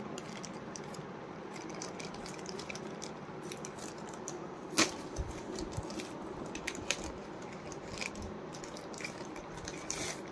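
Plastic courier mailer bag being torn open and crumpled by hand: irregular small crackles and rustles, with one sharper, louder snap about five seconds in and a flurry of crackling near the end.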